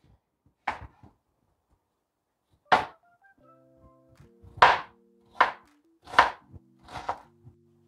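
Chef's knife cutting a red onion on a plastic cutting board: six separate chops at an uneven pace, the knife knocking against the board. Soft background music with held notes comes in about three seconds in.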